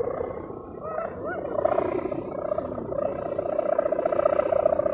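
Kite-mounted sendaren hummer with a plastic-film (mika) ribbon buzzing in the wind as the kite climbs: a rough, rapidly pulsing drone that sets in about a second and a half in and grows, like an erratic diesel engine.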